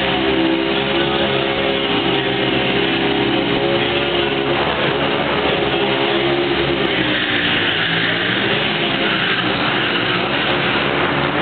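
Motorcycle engines running, mixed with loud music with guitar.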